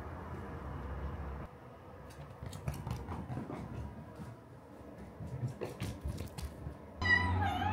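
Light, scattered clicks and taps of a Minuet kitten's paws and claws on a wooden floor as it runs carrying a stuffed toy, over faint room noise. Piano music begins near the end.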